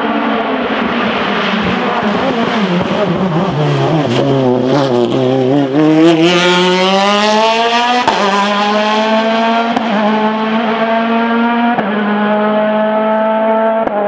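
Ligier JS49 sports-prototype race car's engine at racing pace. The note drops and wavers as the car slows for a bend about four seconds in, then climbs steeply as it accelerates out. It goes through three quick upshifts in the second half, about eight, ten and twelve seconds in.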